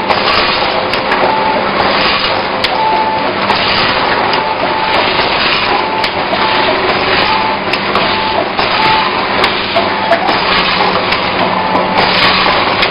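Triangle-bag snack packing machine running: steady mechanical clatter with many small clicks over a low hum, and a short higher tone recurring every second or two.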